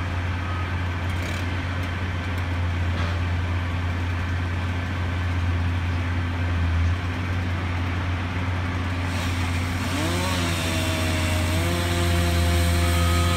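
An engine running steadily with a low drone. About ten seconds in its pitch rises and settles at a higher, steady speed.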